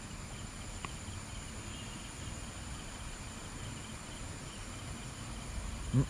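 Steady high-pitched chirring of forest insects, with a faint click about a second in.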